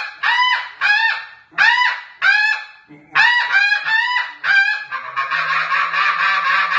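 Ya Ya Calls 'Traffic Control' snow goose call blown hard in a run of loud, sharp honks that come faster and faster, the quickened cadence used when geese are building up. Near the end the honks run together into a continuous rough chatter.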